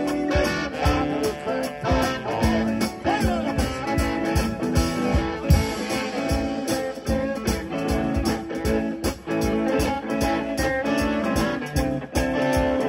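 Live blues band playing: electric guitars over bass and drums keeping a steady beat.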